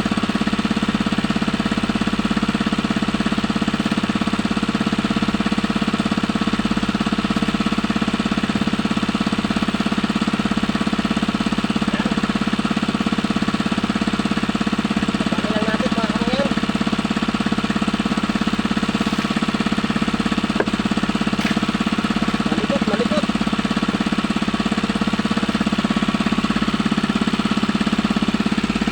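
Small engine running steadily at an even speed with a fast knocking beat.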